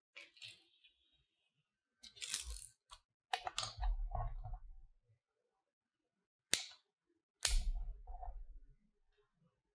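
Hands handling bamboo skewers and coiled model noodles on a wooden board: scattered taps, clicks and light rustles, with a single sharp click about six and a half seconds in.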